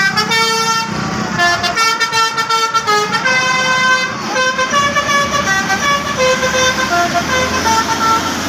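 Bus's Basuri telolet musical horn playing a tune: a quick run of changing notes, several pitches sounding together.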